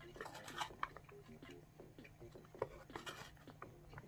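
Faint sounds of a meal being eaten from a takeout container: a fork scraping and rubbing against the container, with a few sharp clicks about half a second in and again past halfway.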